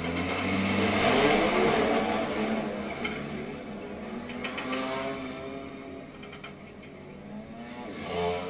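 A motorbike passing on the road, its engine swelling to a peak about a second in with its pitch gliding, then fading away. Another engine swells up briefly near the end.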